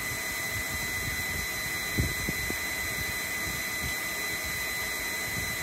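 Steady electrical whine and fan hiss from a Bell 429 cockpit's avionics and cooling fans on battery power, engines not yet running. A few soft taps about two seconds in.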